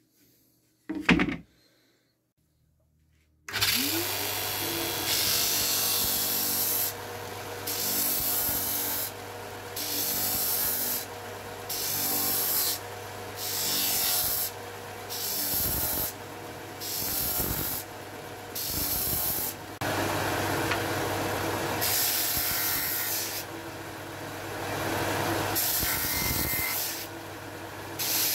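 A knock as a board is set down about a second in. Then a benchtop belt-and-disc sander starts up and runs with a steady hum. The edge of a round fibreboard blank is pressed against the sanding disc in repeated strokes of about a second each, with longer passes near the end.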